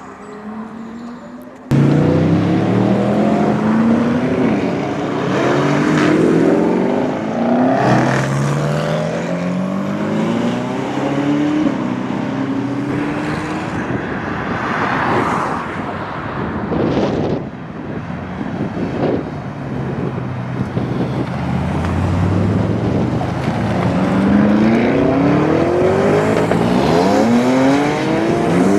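Lamborghini Urus Performante's twin-turbo V8 with Akrapovič exhaust accelerating hard. It comes in suddenly about two seconds in, its pitch climbing and dropping back through several upshifts, with sharp exhaust crackles through the middle and another hard pull near the end.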